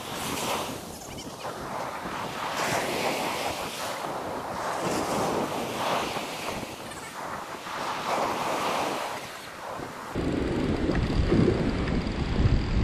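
Ocean surf breaking on a sandy beach, several waves crashing and washing in one after another. About ten seconds in, a low rumble of wind buffeting the microphone takes over.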